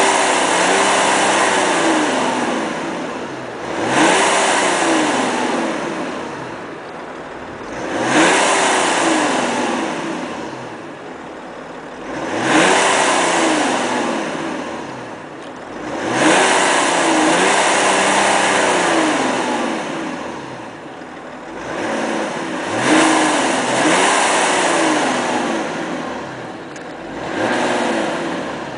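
Stock exhaust of a BMW E90 330d's 3.0-litre inline-six turbodiesel, revved repeatedly. About every four seconds each rev climbs quickly in pitch and loudness, then falls back more slowly.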